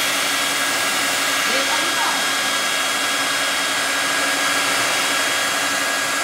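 Handheld hair dryer running steadily: an even rush of blown air with a steady high whine from its motor.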